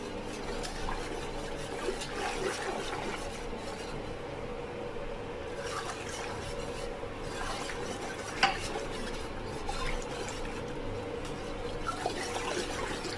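Wire whisk stirring a thin, not yet heated batter of gram flour, yogurt and water in an aluminium pot: steady sloshing and swishing of the liquid, with a couple of sharp clinks of the whisk against the pot, the loudest about eight and a half seconds in.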